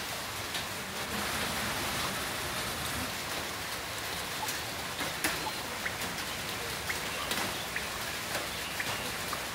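Heavy rain falling steadily, with scattered sharp drop taps and small pings from drops striking a nearby surface.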